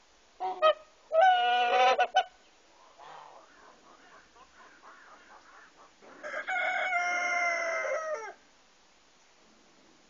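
A rooster crowing twice: a held crow of about a second near the start, and a second crow of about two seconds beginning some six seconds in, dropping slightly in pitch at its end.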